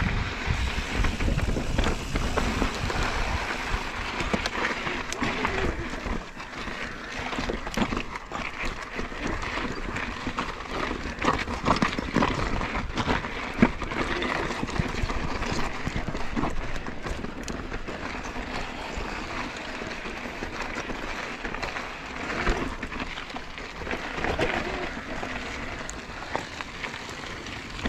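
Mountain bike rolling over a rocky gravel trail: tyres crunching and the bike rattling, with scattered sharp knocks.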